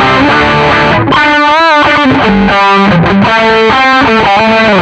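Electric guitar played through a NUX MG-400 multi-effects unit on a distorted patch. It plays a lead line of held notes, with a wide vibrato bend about a second in and another bent note near the end.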